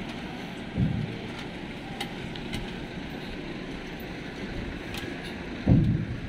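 A truck with a tall empty cage body rolling slowly past at close range, its engine running low and steady, with two low thumps, about a second in and near the end.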